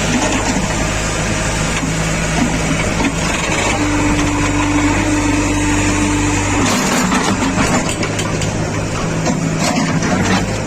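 Backhoe loader's diesel engine running steadily under work. About two-thirds of the way in, the low hum drops away and a rougher clattering noise with scattered knocks takes over.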